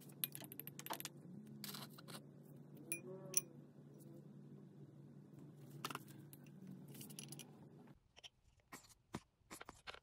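Small sharp clicks and taps of a plastic syringe and a lip gloss tube being handled over a bowl of lip gloss mixture, with a quick cluster of taps near the end. Under them a low steady hum stops suddenly about eight seconds in.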